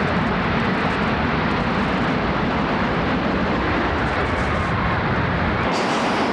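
Steady, dense rumbling roar of a World Trade Center twin tower collapsing. The deepest rumble drops out near the end, leaving a lighter hiss.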